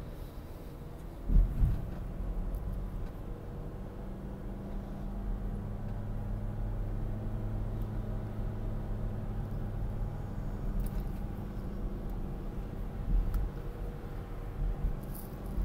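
A car driving along, heard from inside the cabin: a steady low engine and road rumble with a faint hum, and one loud thump about a second and a half in.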